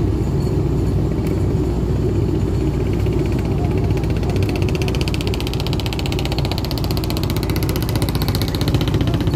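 A fishing boat's inboard engine running steadily, a loud low rumble. From about halfway through, a fast, even clatter rises over it.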